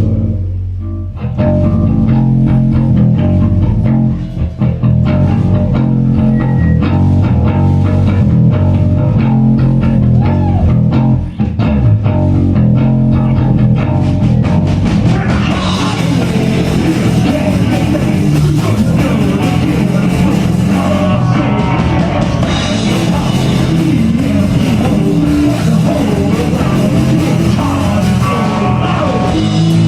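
Punk rock band playing live: distorted electric guitar, bass guitar and drum kit. About halfway through the sound turns brighter and harsher, with a high hiss-like wash filling in over the steady low end.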